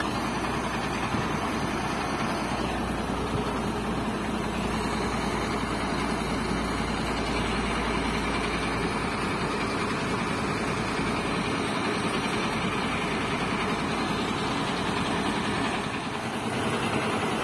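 Heavy diesel trucks idling, a steady engine rumble with a low hum that eases after about eleven seconds.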